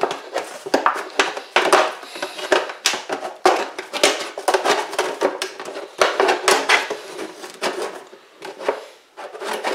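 Scissors cutting through the side of a plastic orange juice jug: a string of irregular crunching snips and scrapes.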